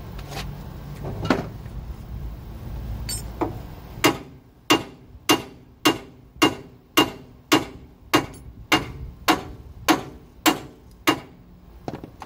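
Hammer striking the steel steering knuckle of a Ford F-150's front suspension: a few light knocks, then a steady run of about thirteen ringing blows, a little under two a second. The knuckle is being hammered to shock the upper control arm's ball joint stud loose from its taper.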